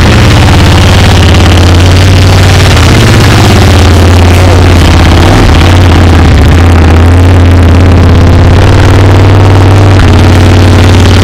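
KTM 1190 Adventure motorcycle's V-twin engine idling loudly just after starting, its pitch shifting slightly a couple of times with small throttle changes as the bike is moved slowly.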